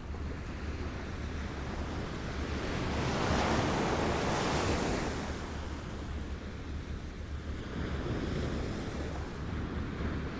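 Small waves lapping at the shore. One wash swells up and falls away about halfway through, and a smaller one follows near the end, over a steady low rumble.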